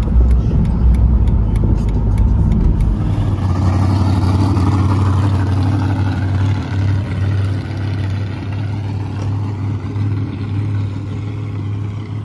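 A car driving: deep road rumble inside the cabin with a run of light ticks. About three seconds in it changes to a steady low engine hum of a vehicle running at low speed.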